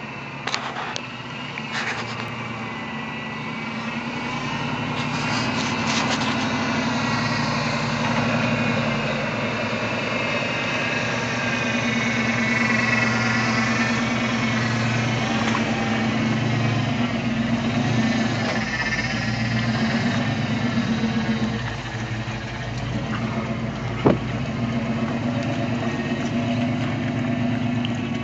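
Square-body Chevrolet K5 Blazer's engine running at low speed under load as it tows a boat trailer along a muddy track, growing louder as it approaches and passes. A brief high chirp about three-quarters of the way through.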